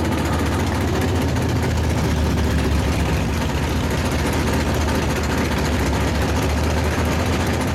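A drag-racing vehicle's engine idling loudly and steadily with a deep low rumble, no revs and no launch.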